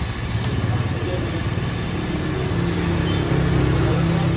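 Battered fritters sizzling in a wok of hot oil over a gas burner, under a steady low engine rumble that grows a little louder past halfway.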